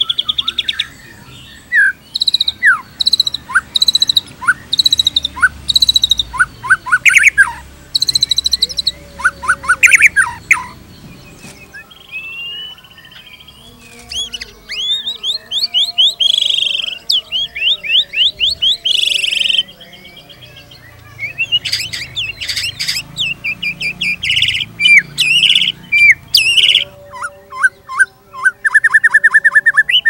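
White-rumped shama (murai batu) singing a loud, varied song. It mixes runs of repeated whistled notes, quick downward-sweeping notes and fast chattering trills, with brief pauses about twelve and twenty seconds in.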